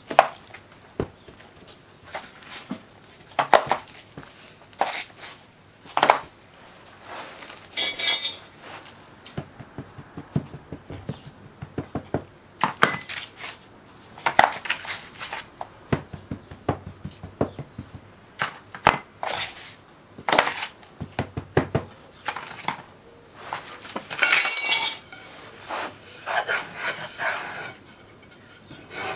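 Moulding sand being scooped with a plastic scoop into a wooden casting flask and packed down: irregular scrapes, taps and knocks of the scoop against the wooden frame and the sand. Near the end, a wooden strike-off bar scrapes across the top of the flask.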